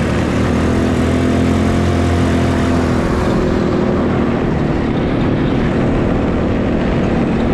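Four-wheeler (ATV) engine running steadily under way. Its note holds clear for about three seconds, then shifts and blurs.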